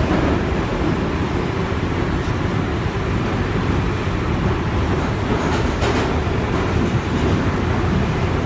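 Inside a 1995-stock London Underground Northern line train running through a tunnel: a steady low rumble of wheels on rail with rushing noise, and a couple of faint clicks about six seconds in.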